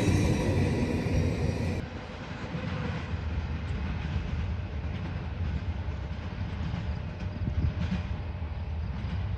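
Freight train rolling past, its railcar wheels rumbling on the rails. About two seconds in the sound drops abruptly to a quieter, steady low rumble with a few faint clicks.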